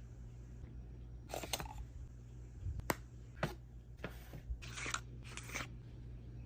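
Makeup packaging being handled and opened: a series of short crinkles and rustles with a couple of sharp clicks, over a low steady hum.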